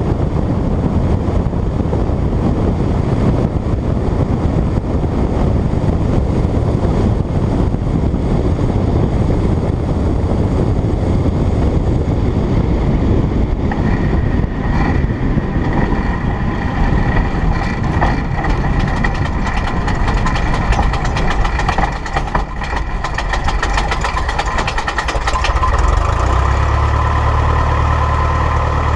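Light single-engine propeller airplane landing on a grass field. Engine and wind rush on the low approach, then about halfway through the rush dies down and steady engine tones come through. Knocks follow as the aircraft rolls over rough grass, and near the end the engine settles to a low, steady idle hum.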